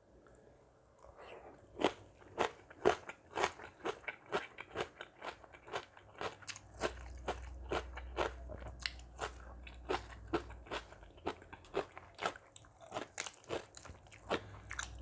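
Close-up chewing of crunchy food, a steady run of crisp crunches about three a second that starts about two seconds in.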